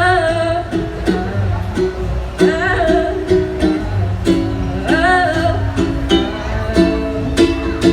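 Live acoustic performance of a pop song: a strummed plucked-string instrument keeps a steady rhythm. Over it a singer holds three wordless bending notes between lyrics.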